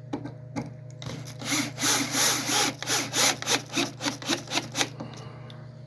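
Oscillating multi-tool blade cutting into wood, about a dozen rasping strokes at three to four a second, starting about a second in and stopping near the end.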